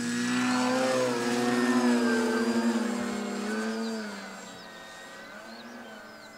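The motors and propellers of two RC model planes (Flex Innovations RV8s) at high throttle on the takeoff run and climb-out, a droning hum with a thin high whine whose pitch wavers slightly. It is loudest in the first few seconds and fades from about four seconds in as the planes climb away.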